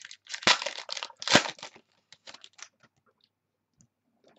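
Football trading cards being handled and flicked through by hand: quick papery rustles and clicks of card stock, with two sharp taps about half a second and just over a second in.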